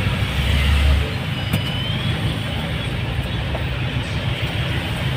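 Steady engine and road rumble heard inside a vehicle's cabin, heavier in the first second and then settling to an even level.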